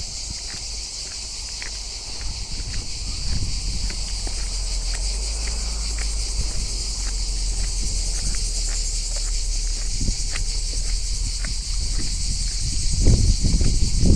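A steady, dense, high chorus of insects chirring throughout, with footsteps on a trail, heavier near the end.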